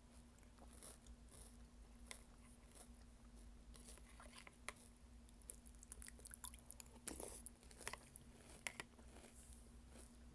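Faint crunchy chewing of mini toast cereal soaked in milk, with scattered small crunches that grow busier and sharper in the second half.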